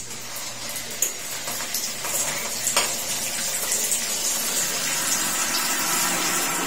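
Handheld shower head running, its spray hissing steadily and spattering on a tiled wall. The sound builds over the first couple of seconds, with a couple of sharp taps in the first three seconds.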